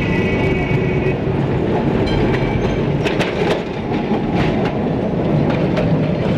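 Kolkata electric street tram running along the track, its wheels clattering with sharp clicks over the rail joints. A high steady tone sounds in the first second.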